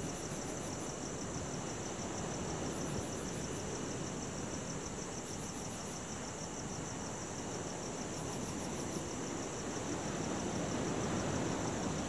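Crickets chirping in a steady, rapidly pulsing trill over the wash of ocean waves, with a higher-pitched insect trill coming in four short bursts; the surf swells near the end.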